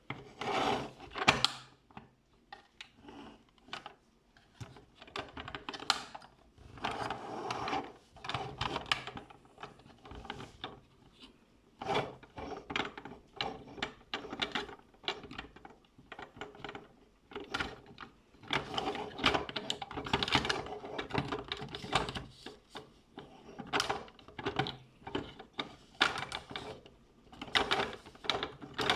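Plastic toy bulldozer being worked by hand: its moving parts click, clatter and ratchet in irregular bursts.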